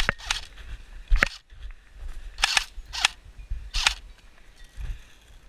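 Airsoft guns firing: about six short, sharp clicking pops at irregular intervals.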